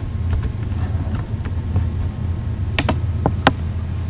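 Typing on a computer keyboard: a scatter of separate key clicks, with a few louder strokes about three seconds in, over a steady low hum.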